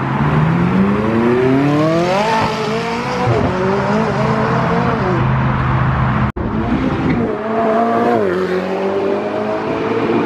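A McLaren 600LT's twin-turbo V8 accelerating hard as it pulls away, the pitch climbing steadily for about two seconds, dropping at a gear change and climbing again. After a break about six seconds in, a supercar engine revs up and down as it pulls away.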